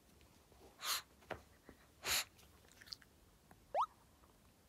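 Faint sounds of a small Maltese dog nosing and mouthing a plush toy: two short sniffs or snorts about a second apart, soft mouth noises, and near the end a brief rising squeak.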